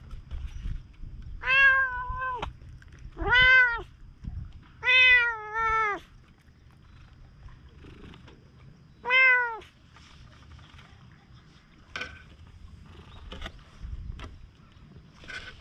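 Cat meowing five times, drawn-out calls, with two back to back about five seconds in, then falling quiet.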